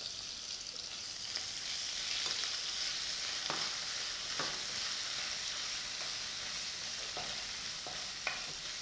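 Cumin seeds, green chillies and freshly grated ginger sizzling in hot mustard oil in a kadhai: a steady frying hiss, with a few light scrapes and taps from a wooden spatula stirring them.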